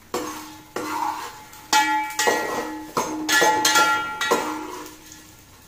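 Metal spoon knocking and scraping against an aluminium cooking pot while stirring gum frying in ghee, about seven knocks, each followed by a brief metallic ring. The sound fades out near the end.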